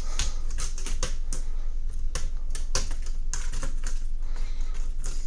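Irregular sharp plastic clicks and snaps from a ThinkPad T430's plastic casing parts being worked loose by hand, with a part sticking before it frees. A low steady hum sits underneath.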